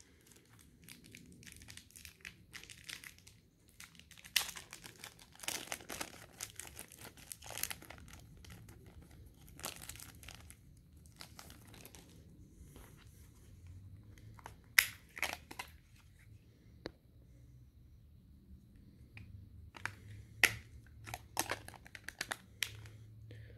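A thin plastic battery bag crinkling and tearing as it is opened, then the LG AX145's battery and back cover being fitted, with several sharp plastic clicks as they snap into place.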